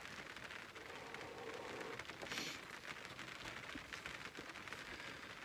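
Steady heavy rain pattering on the roof of a truck camper, heard from inside: a faint, even patter of many small drop ticks.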